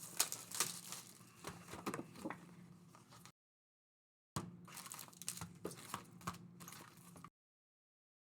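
Trading card packs and cards being handled: foil wrappers crinkling and tearing, with small clicks and rustles of cards. The sound drops to dead silence twice.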